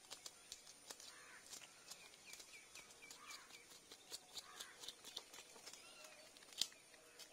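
Scales being scraped off a karimeen (pearl spot fish) with a scissors blade: many light, irregular scratchy clicks. A bird gives a quick string of short chirps about two to three seconds in.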